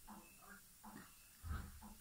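Faint, muffled voices in short fragments, with a low thump about one and a half seconds in.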